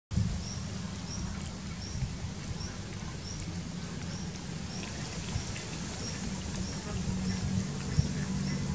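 A short, high chirp repeats evenly about twice a second, over a low rumble of wind and handling noise on the microphone, with a few small knocks.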